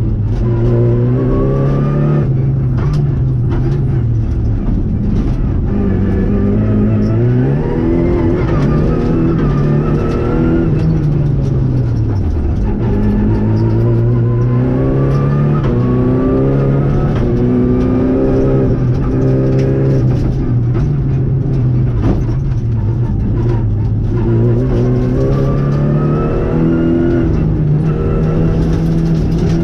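Renault Clio Rally5's turbocharged 1.3-litre four-cylinder engine heard from inside the cabin at full rally pace. The revs climb again and again, with sharp drops at the gear changes and when easing off for corners.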